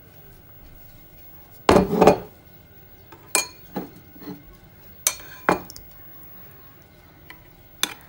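A metal spoon clinking and knocking against dishes as ground coriander is scooped and tapped into a bowl of sauce. A loud cluster of knocks comes about two seconds in, then single clinks follow every second or two.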